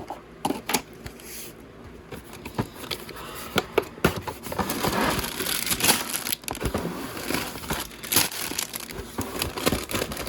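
Plastic LEGO parts bags and set packaging being handled: crinkling and rustling with scattered clicks and knocks, getting busier about halfway through.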